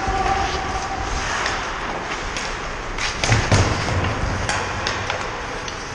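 Ice hockey play on the rink: a steady scrape and hiss of skate blades on the ice with sharp clacks of sticks and puck. About three and a half seconds in there are a couple of heavy thuds.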